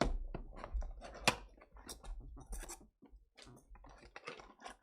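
Hands opening a trading-card box and its foil packs: crinkling and tearing of wrapper with scattered small clicks and snaps, one sharp snap about a second in.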